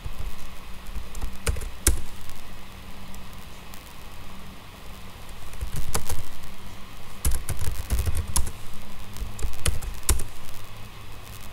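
Typing on a computer keyboard: irregular key clicks, bunched in short runs, over a steady low hum.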